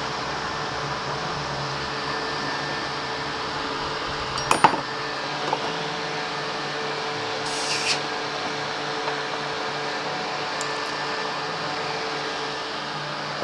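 Steady hum of an electric fan, with a few light knocks and clicks: the loudest about four and a half seconds in, and a short hiss near eight seconds.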